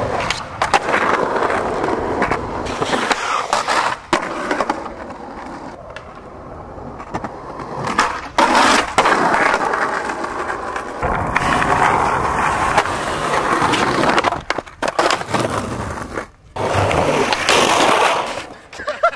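Skateboard wheels rolling on rough concrete, with several sharp clacks of the board hitting the ground.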